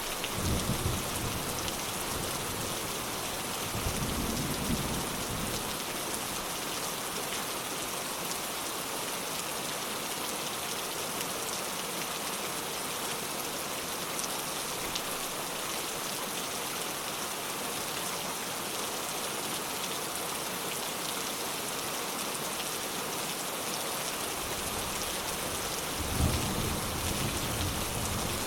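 Steady rain pattering, with low rumbles of distant thunder: one near the start, one about four seconds in and one near the end.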